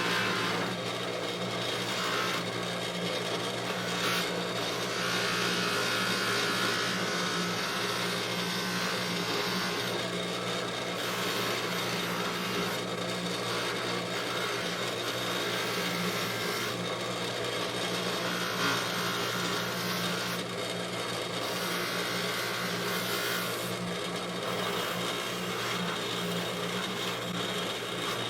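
Bench buffer motor running with a steady hum while a metal divot tool is held against the spinning buffing wheel, a rushing rub of wheel on metal that swells and eases in stretches as the pressure changes.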